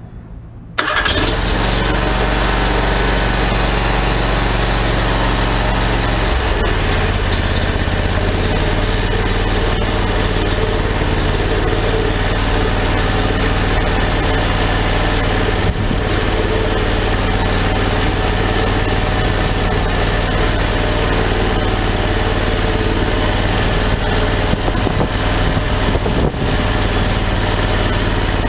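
Predator 670cc 22 hp V-twin engine on a Rayco stump grinder starts about a second in and then runs steadily.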